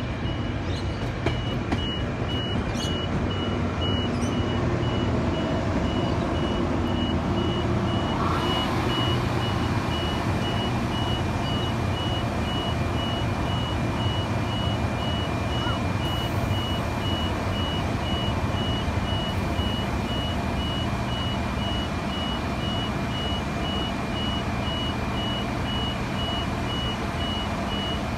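Level crossing warning bells ringing steadily and repeatedly, over the low running of a Spirit of Queensland tilt train's diesel power car as the train comes through the crossing and draws to a stop. A hiss rises about eight seconds in.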